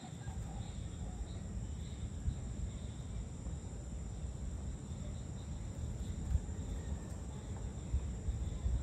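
Evening outdoor ambience: insects trilling steadily, over a stronger uneven low rumble.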